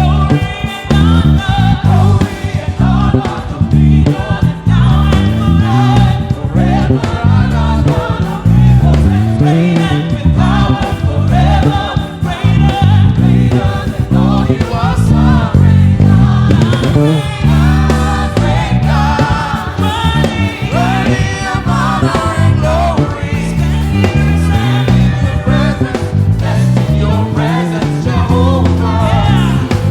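Gospel choir singing contemporary praise over a full band with strong bass and a steady beat.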